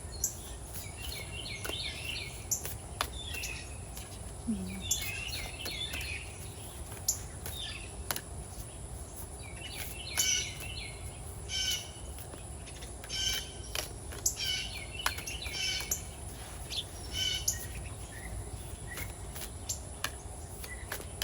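Wild songbirds chirping outdoors in short bursts of rapid notes every couple of seconds, over a steady background of outdoor noise, with a few sharp clicks in between.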